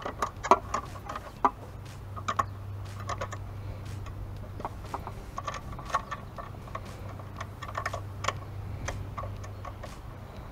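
Irregular light clicks and taps of headlight parts being handled as the chrome rim and lens are seated into the headlight bucket, a few sharper knocks in the first second or so, over a low steady hum.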